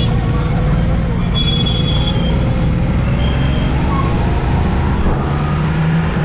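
Ducati Multistrada's engine running at low speed in slow, busy road traffic, a steady pulsing rumble, with other motorcycles and heavy lorries close by.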